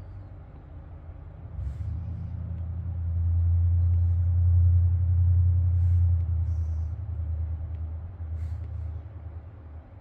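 A low rumble that builds from about two seconds in, is loudest in the middle, and fades away near the end. A few faint taps of an Apple Pencil on an iPad screen sound over it.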